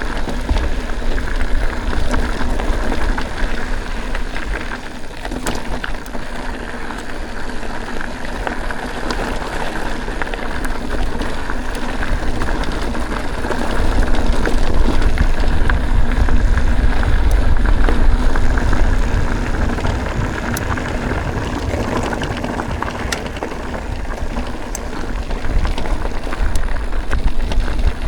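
Mountain bike being ridden on a dirt trail: wind buffeting the microphone as a heavy steady rumble, with tyre noise and occasional clicks and rattles from the bike, louder for a few seconds in the middle.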